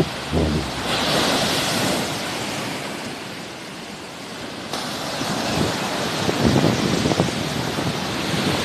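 Sea waves washing in, a steady surf hiss that swells about a second in, with gusts of wind buffeting the microphone now and then.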